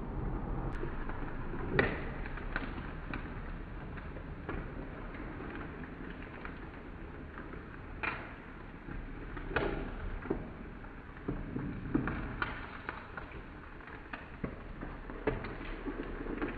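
Shrimp batter shallow-frying in hot oil in a pan, sizzling and crackling steadily, with a few sharp clicks of slotted metal tongs knocking against the pan as the pieces are turned.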